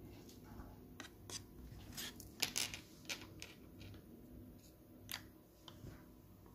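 Stainless steel spoon stirring thick yogurt and scraping and clicking against the sides of a plastic yogurt cup: a series of short clicks, the loudest cluster about two and a half seconds in.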